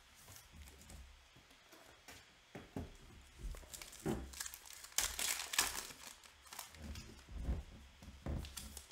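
A Panini Illusions football card pack's foil wrapper being torn open and crinkled by hand. It comes as a series of short rustles that are loudest about halfway through.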